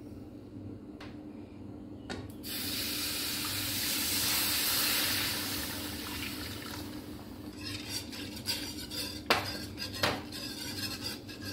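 Milk poured in a steady stream from a jug into a pan of roasted semolina and sugar, starting about two seconds in and lasting about five seconds. Then a wire balloon whisk beats the milk and semolina, scraping fast against the pan, with two sharp knocks near the end.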